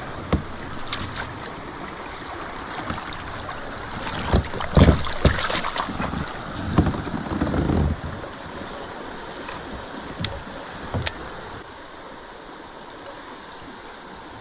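A hooked smallmouth bass splashing and thrashing at the surface beside a kayak, loudest from about four to eight seconds in as it is lifted out of the water. Steady wind on the microphone and lapping water run underneath, with a few sharp clicks and knocks.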